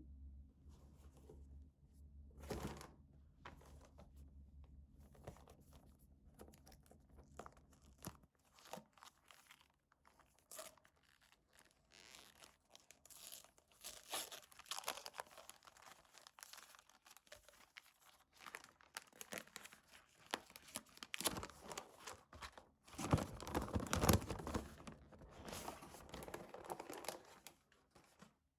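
Gift packaging being opened by hand: wrapping crinkling and tearing in a long run of rustles and crackles. The densest rustling comes a little before the end.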